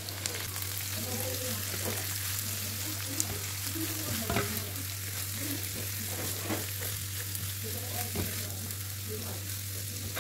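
Shredded cabbage sizzling steadily in hot oil in a pan, with a spatula stirring through it and scraping now and then.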